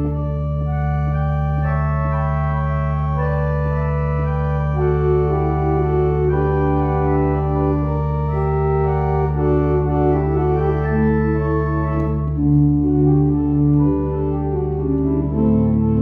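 Church organ playing a hymn prelude: sustained chords moving over a low bass note that is held through most of the passage and changes near the end.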